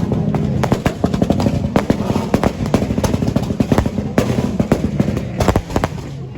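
Fireworks going off in a rapid, irregular string of sharp bangs and cracks.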